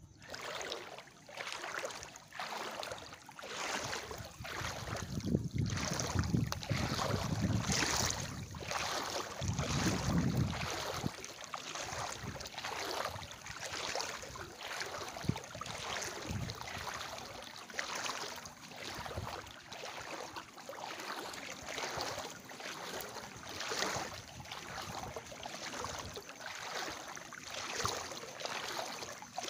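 Wading through knee-deep floodwater: the water sloshes and swishes with each step, about once a second. A low rumble joins in for several seconds in the first half.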